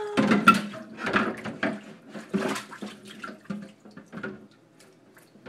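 Water splashing in a kitchen sink while dishes are washed by hand, in uneven bursts of splashing and rubbing that die down near the end.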